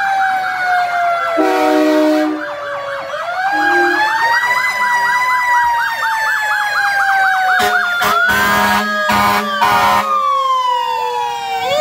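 Fire truck sirens sounding together: a slow wail sliding down in pitch overlaps a fast warbling yelp in the middle. Air-horn blasts come once about a second and a half in, then several short ones close together near the end.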